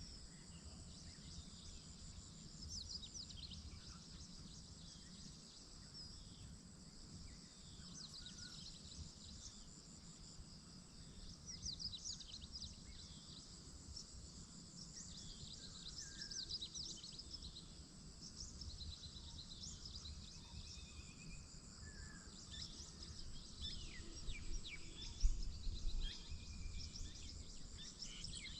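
Morning birdsong chorus: several birds singing quick high chirps and trills over a steady high insect-like buzz and a low rumble, with a brief low thump near the end.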